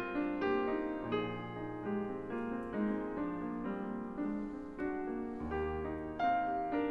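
Background piano music: a slow melody of separate notes over low held notes.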